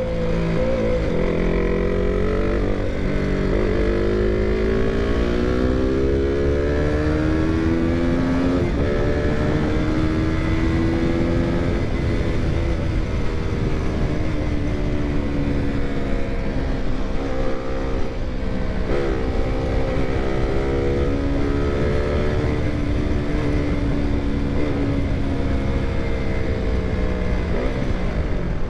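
KTM single-cylinder motorcycle engine under way, rising in pitch as it accelerates and dropping back at gear changes, with a dip and fresh climb about two-thirds of the way through. A steady low rush of wind and road noise runs underneath.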